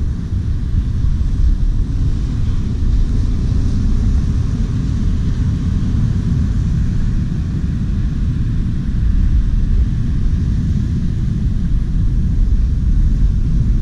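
Wind buffeting the microphone in a steady low rumble, with ocean surf hissing faintly behind it.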